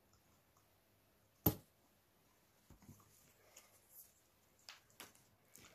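One sharp knock about a second and a half in, then light scattered taps and rustles: a sheet of cardboard and tools being handled on a worktable.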